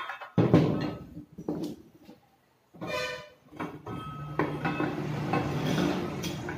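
Metal clanks and knocks of a power tiller's steel fan cowl and a ring spanner being handled on a wooden workbench, the loudest about half a second in. A brief pitched tone sounds about three seconds in, and a steady rough scraping noise runs through the last couple of seconds.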